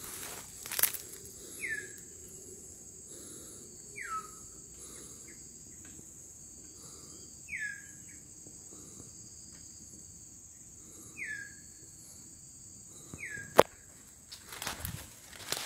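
A steady high drone of crickets or other insects. A bird gives a short, falling whistled call five times, every two to four seconds. A single sharp knock comes near the end.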